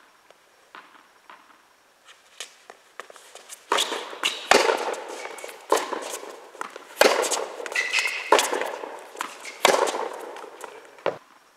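Tennis rally on an indoor court: sharp pops of tennis balls struck by rackets and bouncing on the court, about one every second or so, each echoing in the hall.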